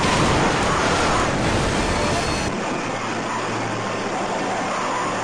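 Steady rushing road and traffic noise from a vehicle moving through highway traffic. About halfway through it cuts abruptly to a thinner, quieter rush with a low steady hum.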